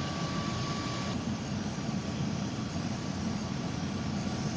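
2001 Toyota Tacoma pickup idling with its heater blower fan running on high, a steady whooshing hum. A faint high whine in it stops about a second in.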